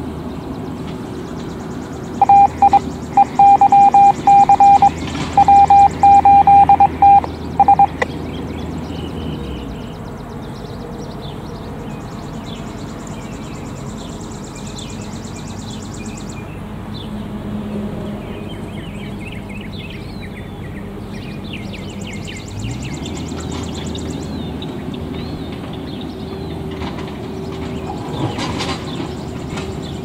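A low engine rumble that fades out about nine seconds in, with loud bursts of a single beeping tone over its last few seconds. Faint bird chirps follow, and an engine rumble comes back with a rising pitch near the end.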